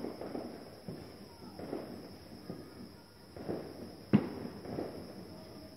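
Firecrackers going off: a scattering of pops, with one sharp bang about four seconds in.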